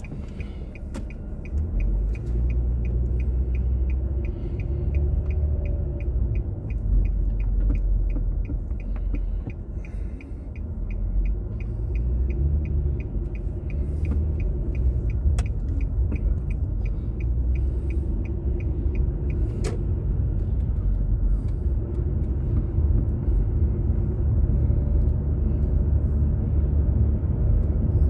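Low engine and road rumble heard from inside a car, with the turn-signal indicator ticking at an even pace for about the first twenty seconds while the car waits and turns at an intersection; the ticking then stops and only the rumble of driving remains.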